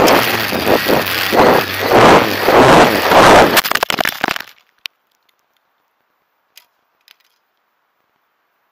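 Quadcopter motors and propellers buzzing loudly on the onboard microphone, mixed with rushing wind and swelling in pulses as the craft tumbles, then a few sharp knocks and a sudden cut to near silence about four and a half seconds in as it crashes and the motors stop. Three faint ticks follow.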